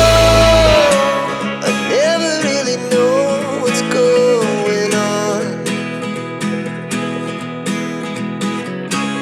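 Background music: a song whose full band drops out about a second in, leaving acoustic guitar under a sung melody.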